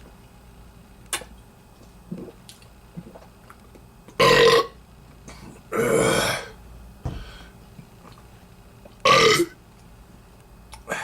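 Three loud belches from a person brought on by root beer: a short one about four seconds in, a longer one of about a second soon after, and a third near the end.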